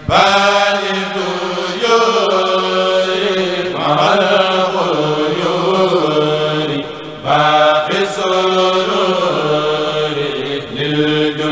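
A kourel of men chanting a Mouride khassida, an Arabic devotional poem, in unison without instruments. It goes in long melodic phrases, with a short breath and a strong fresh entry about seven seconds in.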